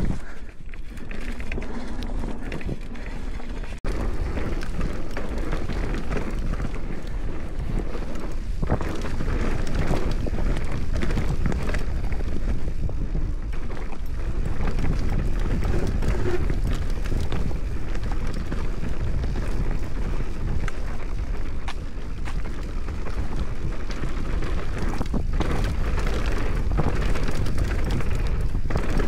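Mountain bike descending a rough bike-park trail: tyres rolling over dirt and rocks, with frequent knocks and rattles from the bike, under heavy wind rumble on the microphone. It dips briefly about four seconds in, then runs a little louder.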